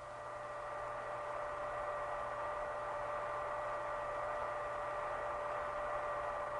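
A steady hum of several held tones over a hiss, slowly swelling in loudness.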